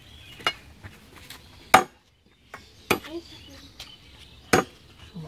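Heavy curved chopping knife cutting duck meat and bone on a wooden log block: four sharp chops, the second the loudest, with lighter taps between.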